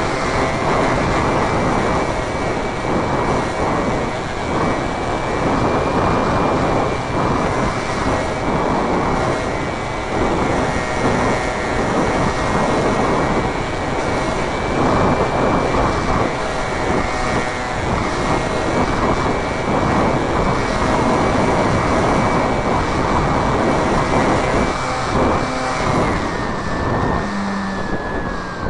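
Onboard sound of a radio-controlled model Cessna Cardinal in flight: a steady, high motor whine over heavy wind rush. A few seconds before the end the whine's pitch falls as the motor is throttled back for landing.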